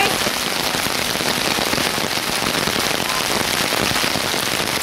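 Steady rain falling, a dense even patter with no let-up.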